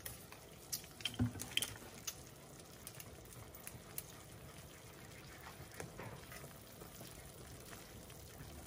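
A spoon stirring a thick peanut butter and hoisin dipping sauce in a bowl, with a few light clinks in the first two seconds and another at about four seconds, over faint steady noise.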